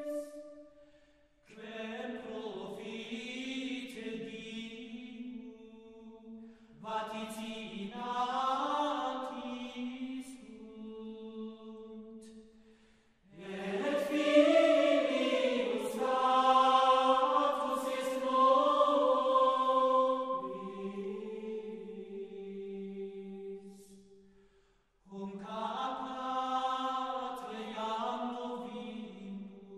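Slow sacred chant, sung by voices in long held phrases with short pauses between them.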